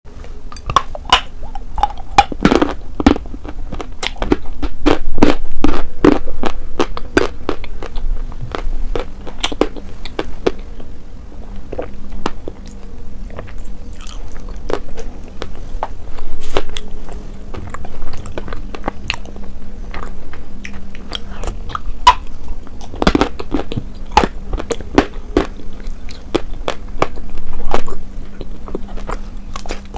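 Close-miked eating: a person biting and chewing meat in a creamy sauce, with many irregular sharp mouth clicks and smacks.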